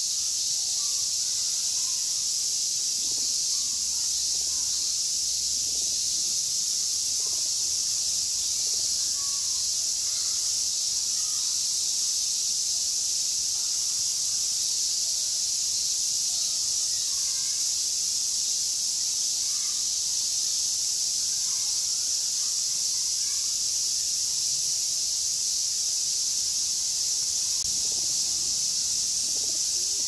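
A dense chorus of summer insects buzzing steadily at a high pitch.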